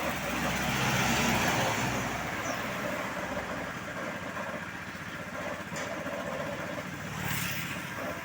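A heavy road vehicle's engine passing, loudest in the first two seconds, then settling to a lower steady traffic rumble with a brief swell about seven seconds in.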